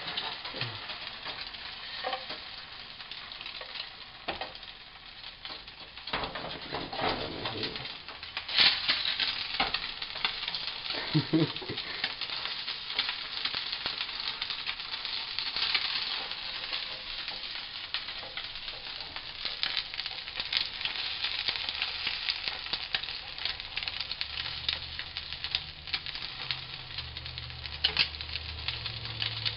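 An egg frying in a nonstick frying pan, sizzling steadily, with scattered scrapes and taps of a plastic spatula against the pan.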